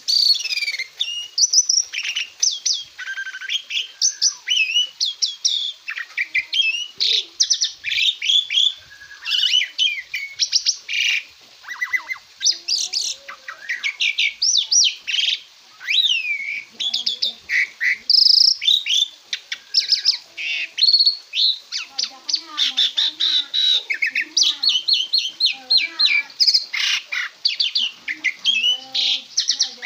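Asian pied starling (jalak suren) singing continuously: a fast, varied run of chirps, whistles and rising and falling notes with only brief pauses.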